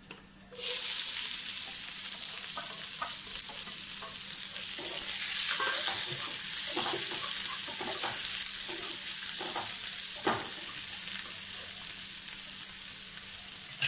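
Chopped onion hitting hot oil in a non-stick frying pan, a sudden sizzle about half a second in: the onion stage of a mustard-seed tempering. The sizzling goes on steadily while a spatula stirs the onion, scraping and tapping against the pan.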